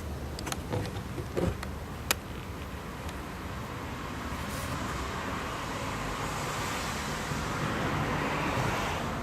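A few sharp clicks in the first two seconds, then a road vehicle passing, its tyre and road noise swelling over several seconds and fading near the end.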